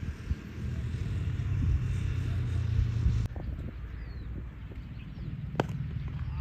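Steady low rumble that cuts off abruptly about three seconds in, followed near the end by a single sharp crack.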